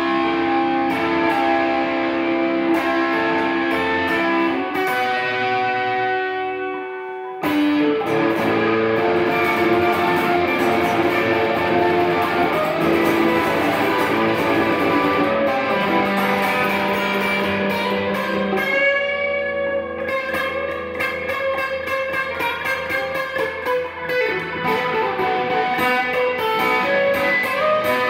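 Electric guitar played through effects, with sustained notes and chords ringing over one another and a brief drop in level about seven seconds in.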